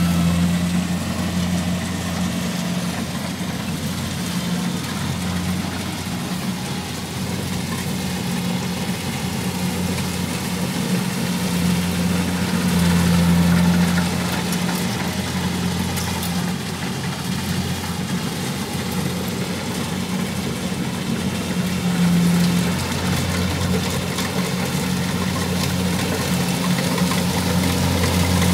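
Kubota rice combine harvester's diesel engine running steadily with a constant low hum as it cuts and threshes rice, getting a little louder near the end as it comes closer.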